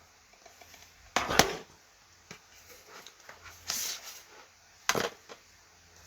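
Plastic DVD cases being handled and set down: a sharp knock a little over a second in, a brief rustle or slide near four seconds, another knock near five seconds, and small clicks between.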